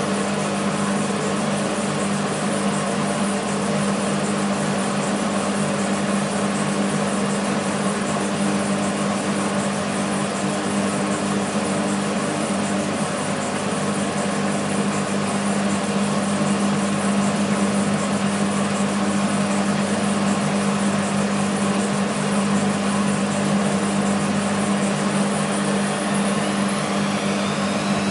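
BEKO WMB 51441 front-loading washing machine with its drum spinning: a steady motor hum over drum and water noise. Near the end a higher whine rises in pitch as the motor speeds up.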